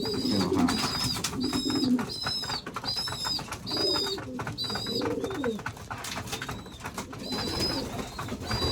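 Pigeons cooing, in bursts at the start and again about four seconds in, over a steady string of short high peeps at about one and a half a second, with scattered light clicks and scuffs.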